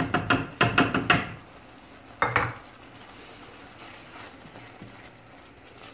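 A ceramic bowl knocking against a metal cooking pot several times in quick succession as flour is tipped out, and another clatter about two seconds in. Faint scraping of a wooden spoon stirring thick mung bean paste follows.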